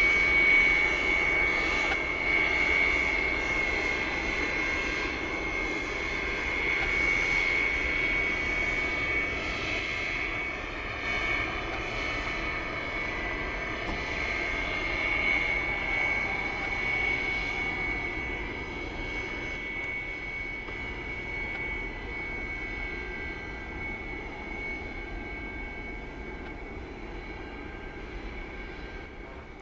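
Tupolev Tu-154 airliner's jet engines at taxi power: a steady high whine over a low rumble, slowly fading away.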